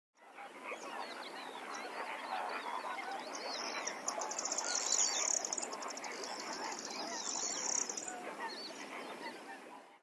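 A dense chorus of many birds calling over one another, fading in after the start and out near the end. A high, rapid trill runs through it twice in the middle.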